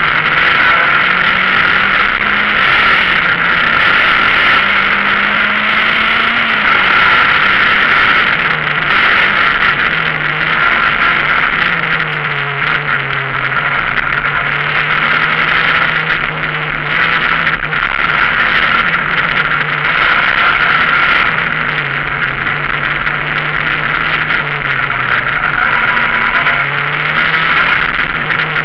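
Citroën Saxo VTS rally car's engine heard from inside the cabin while it is driven hard on a twisty tarmac stage. The revs keep rising and dropping through corners and gear changes, over loud road and cabin noise.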